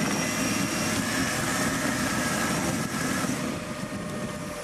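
Land Rover Discovery's 4.2-litre V8 with a straight-through exhaust, running steadily and getting a little quieter about three and a half seconds in.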